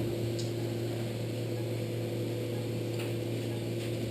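Steady electrical hum of operating-room equipment, with a few faint clicks.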